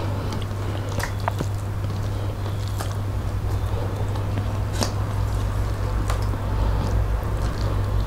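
Eating by hand: wet chewing and lip smacks, with short clicks as fingers squish and mix rice and fish curry on steel plates. A steady low hum runs underneath.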